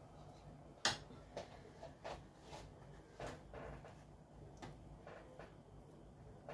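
Faint, scattered light taps and clicks of hands working a filled round of dough on a wooden cutting board, with one sharper click about a second in.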